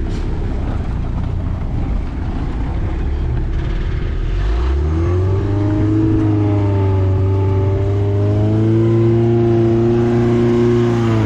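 Skid steer's repowered Isuzu 2.2 L C223 diesel engine running low and rough, then about four and a half seconds in revving up and holding a steady higher speed, the high idle this machine needs in order to move without stalling.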